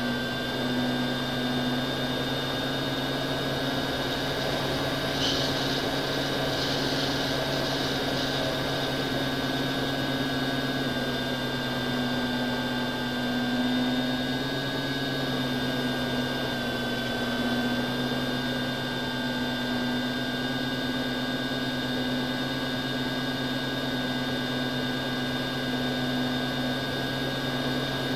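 Electric motor and propeller of an FPV model aircraft, heard through its onboard camera: a steady multi-pitched whine and hum over rushing air noise, its pitch shifting only slightly as the throttle changes.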